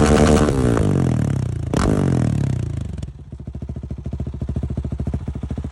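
KTM 690 SMC R single-cylinder engine being revved, with one sharp crack from the exhaust near two seconds in. About three seconds in it drops back to a steady idle, thumping about a dozen times a second.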